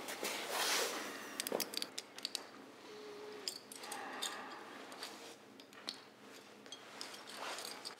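Handcuffs being unlocked with a key and taken off the wrists: a string of small metallic clicks and jingles.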